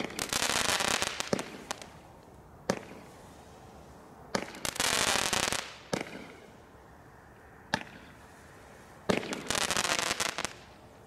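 Consumer firework rockets launched one after another, three in all, about four and a half seconds apart. Each goes up with a hissing whoosh of about a second and a half, with sharp single bangs in between as the rockets burst.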